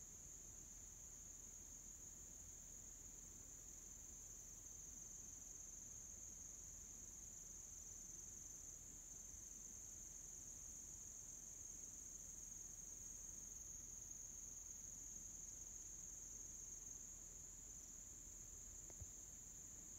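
Faint, steady, high-pitched insect chorus: a continuous trilling drone from insects in the woods.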